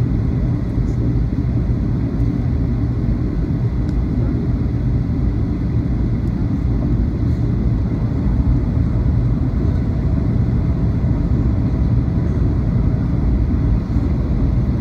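Steady low-pitched jet airliner cabin noise, engines and rushing air, heard from inside the cabin during the landing approach with flaps extended.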